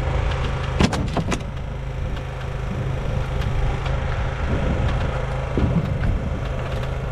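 Boat engine running steadily at idle, a low even hum, with a few sharp knocks about a second in.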